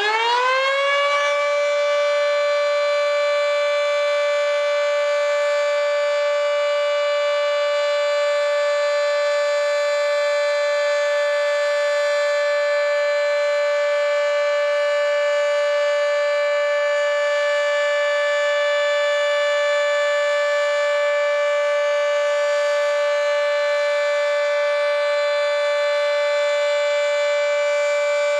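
Federal Signal 2T22 dual-tone, three-phase electromechanical warning siren sounding the alert signal, with its top intake completely blocked. It finishes winding up about a second in, then holds one steady, unbroken chord.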